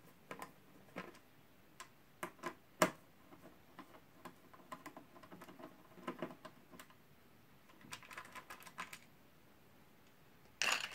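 Faint, scattered clicks and light ticks of a screwdriver turning out the small screws of a motherboard's CPU-socket mounting bracket. Near the end comes a short, louder clatter as the removed parts are dropped into a plastic cup.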